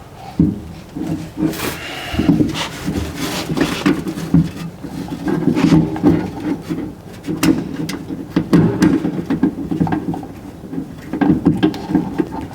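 Irregular rubbing, scraping and small knocks of a hand and arm working inside a car door shell, reaching up to start the bolts of a door mirror from the backside.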